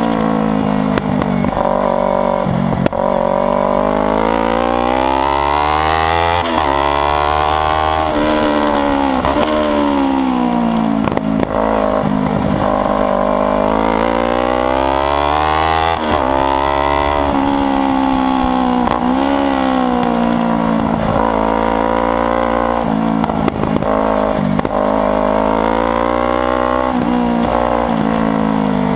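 Kawasaki Ninja 300's parallel-twin engine through a loud aftermarket exhaust, ridden hard around a track. The pitch climbs with sharp breaks at quick gear changes, then falls away as it slows, again and again.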